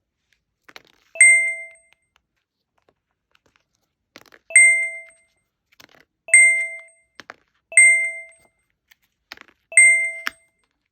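A bright ding chime, heard five times at uneven gaps of one to three seconds, each ringing briefly and fading; faint taps and clicks come between the dings.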